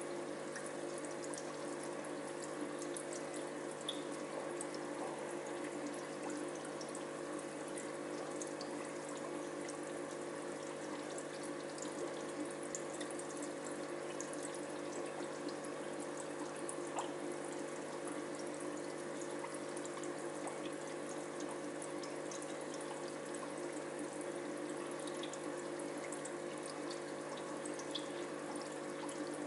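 Aquarium filter water running and trickling steadily, over a low steady hum, with small bubbly ticks here and there.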